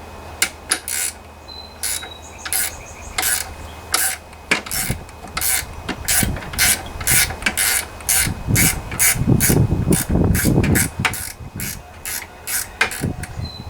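A 7/16-inch ratcheting wrench clicking in steady strokes, about three clicks a second, as a nut holding the mower's drive cable is loosened. A denser grinding, rubbing stretch comes about two-thirds of the way through.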